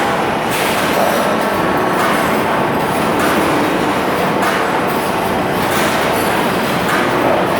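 A machine running loudly with a continuous rattling clatter that surges about once a second.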